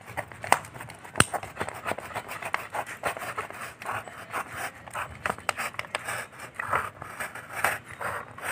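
A snap-off utility knife blade slicing along a line through corrugated cardboard, a run of short rasping, scraping strokes, with a couple of sharp clicks near the start.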